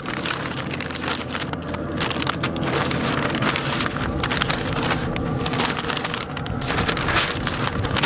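Stiff pink butcher paper crinkling and rustling in irregular crackles as it is folded and rolled tightly around a smoked pork butt and pressed down by hand.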